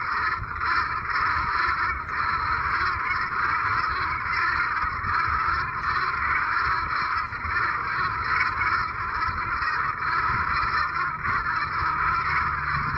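A large flock of geese honking continuously, many calls overlapping into a dense, unbroken chorus, over a low rumble.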